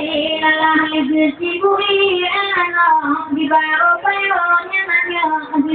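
A female voice singing a slow melody, holding long notes and gliding between them.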